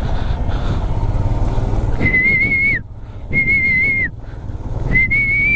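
Three high whistles, each a little under a second long with a slight waver and a drop in pitch at the end, over a motorcycle engine running as the bike rides through a shallow rocky stream crossing.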